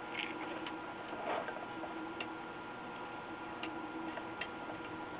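Soldering iron tip and desoldering braid working over the solder pads of a circuit board, clearing the capacitor mounting holes: faint irregular ticks and light taps, with a short louder scrape a little over a second in. A steady faint hum runs underneath.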